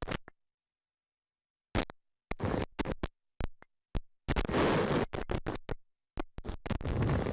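Hurricane wind and driving rain rushing over the microphone, with the audio cutting out to dead silence. It drops out for over a second near the start, comes back in short choppy bursts, and runs more steadily near the end.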